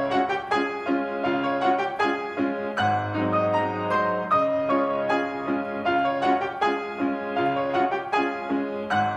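Piano music, a gentle run of notes over a held bass note.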